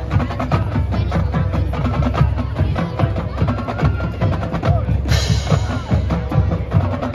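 Marching band playing on the field: horns holding chords over steady drum hits, with a cymbal-like crash about five seconds in.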